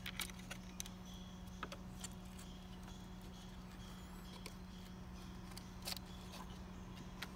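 Scattered small clicks and light plastic-and-metal handling noises as a multi-wire connector and needle-nose pliers are worked inside an opened instrument housing, over a steady low hum.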